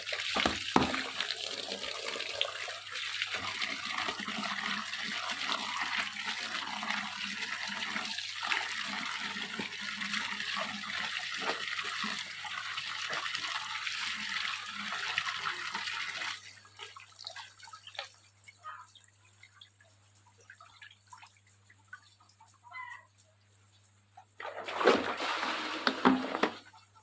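Water running and splashing as freshly picked purslane is washed. It stops suddenly about two-thirds of the way through, and a short burst of splashing comes near the end.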